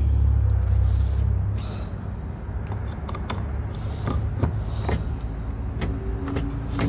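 A low rumble for about a second and a half, then a string of sharp metallic clicks and scrapes as a freshly cut test key goes into a 2017 Ford Explorer's door lock and turns the cylinder. The key is the right one.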